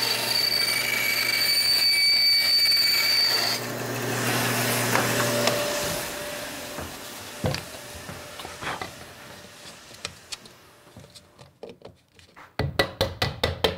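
Band saw running and cutting through a black plastic tube, with a steady hum and a high whine; the whine drops out about three and a half seconds in and the saw runs down by about six seconds. A few light knocks follow, then a quick run of clicks near the end as the plastic pieces are pressed together.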